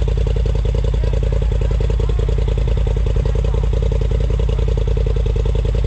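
Off-road vehicle's engine idling steadily, a fast even pulsing with no revving.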